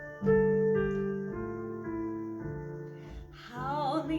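Piano introduction to a song, held chords changing about once a second. A wavering pitched sound joins near the end.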